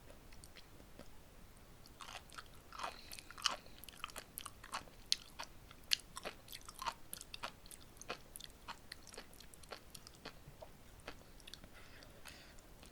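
Close-miked chewing of sea grapes: a rapid string of sharp little pops and wet crunches as the tiny seaweed beads burst between the teeth, thickest in the first half and thinning out near the end.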